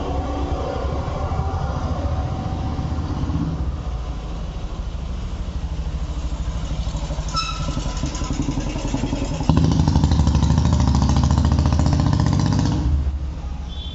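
An engine running steadily, a low pulsing rumble that grows louder about two-thirds of the way in and then drops away near the end. A short high tone sounds briefly about halfway through.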